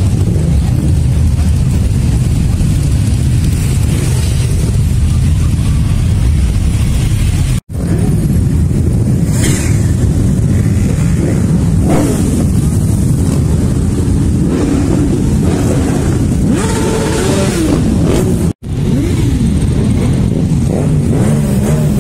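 A dense pack of motorcycle engines running as many bikes ride past together, a steady deep rumble with individual bikes revving, their pitch rising and falling, through the second half. The sound cuts out for an instant twice, about 8 and 19 seconds in.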